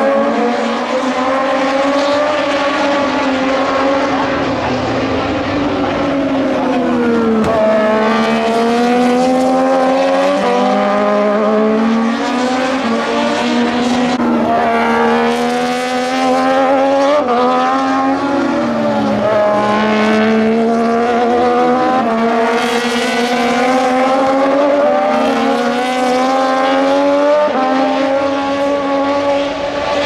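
Moto2 racing motorcycles' Triumph 765 cc three-cylinder engines at high revs, several bikes lapping and overlapping. The engine notes keep climbing and then dropping sharply with each gear change and throttle lift.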